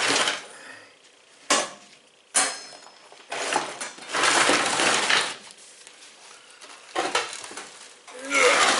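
Metal knocks and clanks from handling the opened steel filing safe and its parts: a sharp knock, then a ringing metallic clank, followed by longer stretches of scraping and rustling.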